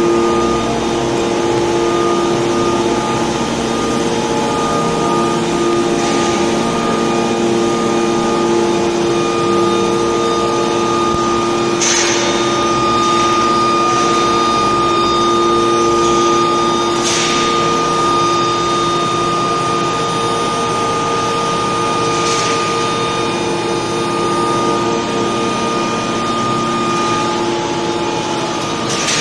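Induction heat-treatment machinery running: a steady machine hum with several held tones, broken by three short bursts of hiss, about twelve, seventeen and twenty-two seconds in.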